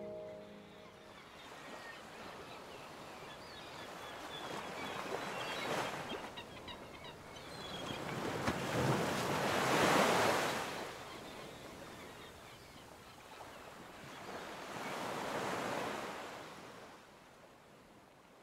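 Surf breaking on a sandy beach, the wash of the waves swelling and fading three times, loudest about halfway through.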